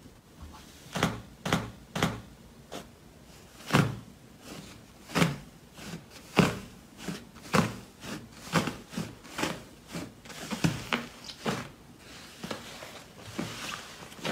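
Hands pressing and kneading thick slime, making a series of short squishing pops. They come about one a second at first, then faster, with a crackly fizz near the end.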